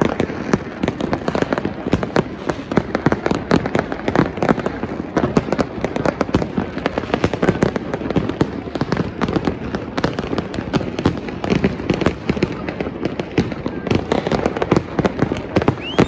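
Fireworks display in full barrage: a continuous run of many overlapping bangs and crackles from bursting aerial shells, with no break.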